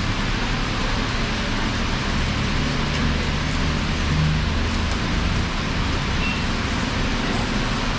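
Steady road traffic noise, with a low vehicle rumble that swells about two seconds in and fades again about five seconds in.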